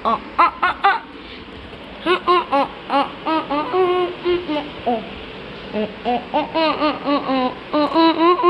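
A young child's high-pitched voice, babbling and laughing in short phrases, with brief pauses about a second in and again past the middle.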